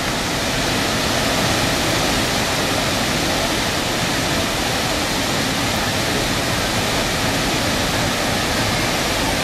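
Large waterfall pouring into a pool: a loud, steady rush of falling water with no breaks.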